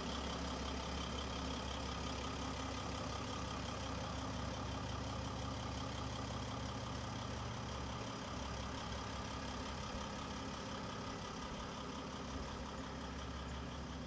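Mercedes-Benz Sprinter 519 CDI minibus's V6 diesel engine idling steadily.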